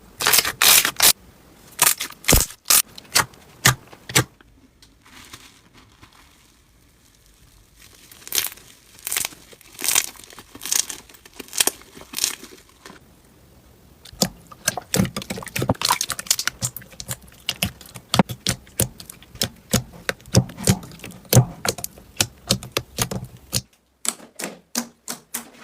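Slime being squeezed and kneaded by hand, giving runs of rapid crackling and popping clicks. There is a quieter patch about five seconds in, and the clicks turn sparser and softer near the end.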